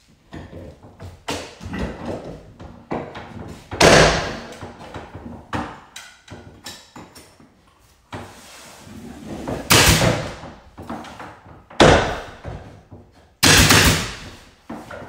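Crown molding being handled and knocked into place against the ceiling, with scattered taps and scrapes, and four louder sharp bangs from a pneumatic nail gun firing into the molding.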